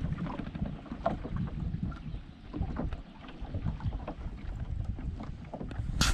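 Canoe being paddled across a calm pond: small paddle splashes and knocks under a steady rumble of wind on the microphone, with a sharper burst of noise near the end.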